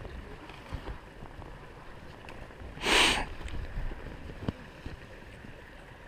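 Skis and poles shuffling and crunching through deep snow, with a few faint clicks, and one loud, short hiss about halfway through.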